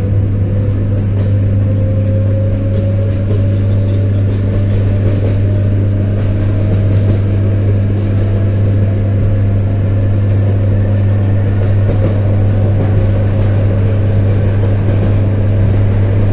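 ED9M electric multiple unit running, with a steady deep electrical hum and a whine that slowly rises in pitch as the train gathers speed.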